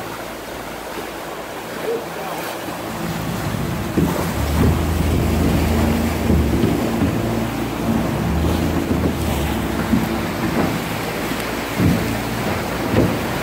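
Motorboat engine running with a low hum that shifts in pitch a few times, over choppy sea water churning and splashing around the hull, with wind on the microphone. A few short splashes or knocks stand out.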